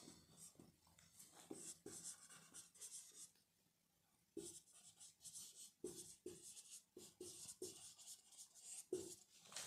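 Faint strokes of a marker on a whiteboard as words are written by hand, a run of short scratches with a one-second pause partway through.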